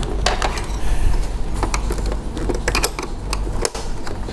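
Irregular light clicks and clinks from screwdrivers and plastic casing being handled as an all-in-one PC is taken apart.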